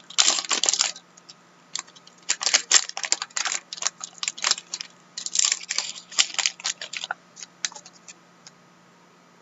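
Bursts of quick, light clicks and taps, irregular and close together, stopping about two seconds before the end.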